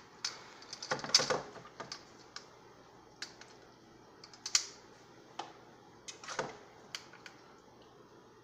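Irregular light clicks and taps, about a dozen, with a loud cluster about a second in and another a little past the middle, over a quiet room background.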